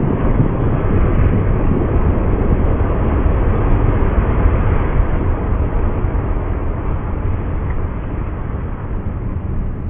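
Sea waves breaking and washing up a pebble shingle beach: a steady rushing noise with a deep, heavy rumble underneath.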